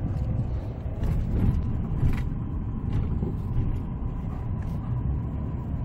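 Car driving along a street: a steady low rumble of road and engine noise, with a couple of faint clicks about two and three seconds in.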